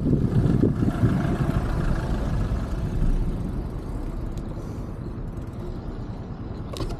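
Road noise heard from a moving bicycle: a motor vehicle's rumble and wind on the microphone, loud at first and fading away over the second half.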